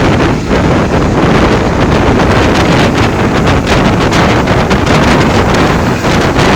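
Heavy wind buffeting the microphone over the steady running noise of a moving passenger train.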